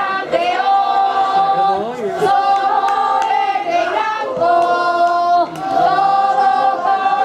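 A group of voices singing a chant together without instruments, in long held notes that step from one pitch to the next.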